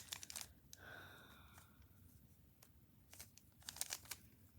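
Faint plastic clicking of a 3x3 puzzle cube's layers being turned by hand, in short quick runs of turns, with a quick flurry near the end.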